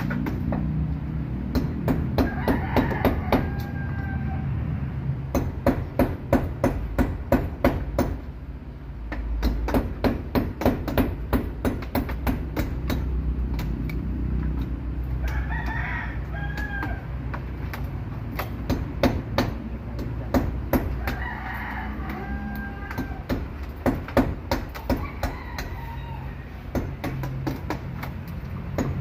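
A rooster crowing about four times, over runs of quick, sharp knocks at about four a second, like hammer blows.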